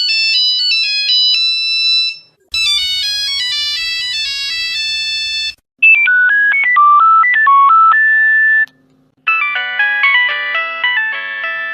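Nokia mobile phone ringtones: short excerpts of different electronic ringtone melodies played one after another. Each runs two to three seconds and is cut off by a brief silence. The later ones have several notes sounding at once.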